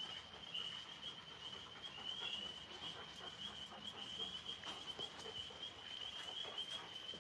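Faint, steady night chorus of insects, a continuous high trill, with scattered soft ticks and rustles.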